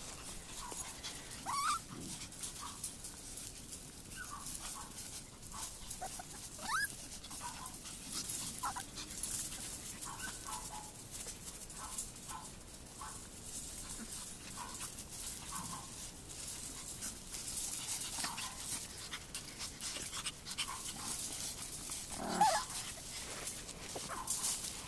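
Chihuahua puppies whining and yipping in short, high calls scattered throughout, some sliding up or down in pitch, the loudest about 22 seconds in.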